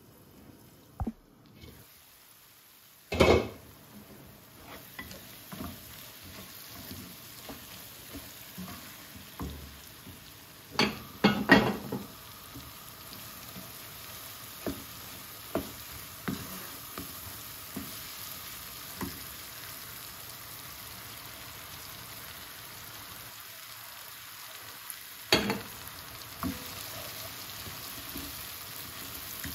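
Onion, peppers and tomato sizzling as they fry in oil in a nonstick frying pan, with a wooden spatula stirring and tapping against the pan. A loud clank about three seconds in and a cluster of louder knocks around eleven to twelve seconds stand out over the steady sizzle.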